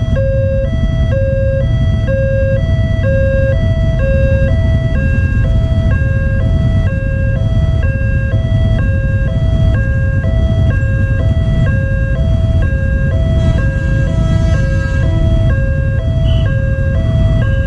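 Railway level-crossing warning alarm sounding, an electronic signal alternating steadily between a lower and a higher tone, about two tones a second, while the crossing is closed for an approaching train. A steady low rumble of idling motorcycles waiting at the barrier lies beneath it.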